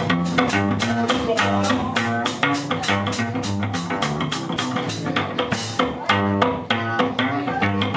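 Live band playing: upright double bass plucked in a driving rhythm, drum kit and electric guitar, with a steady beat.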